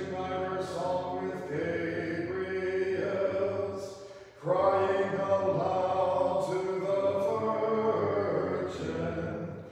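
Orthodox liturgical chant from the Vespers service, sung in two long phrases with a short breath break about four and a half seconds in.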